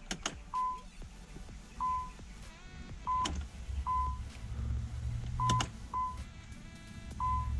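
A 1992 Nissan 300ZX's ignition being cycled to prime the fuel pumps: the car's warning chime gives about seven short beeps at one pitch, unevenly spaced, with a few sharp clicks. A low hum swells about halfway through and drops away again.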